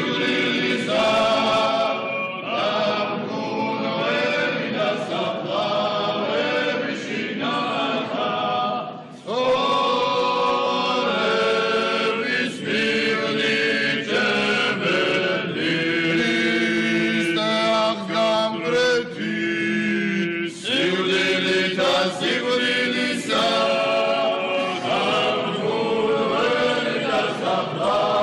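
Orthodox liturgical chant sung by a small choir. The voices sing together in long held phrases, with short breaks about nine and twenty seconds in.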